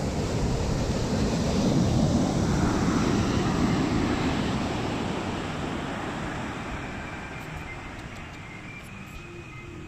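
Wind buffeting the microphone over the rumble of surf, swelling about two seconds in and then slowly fading.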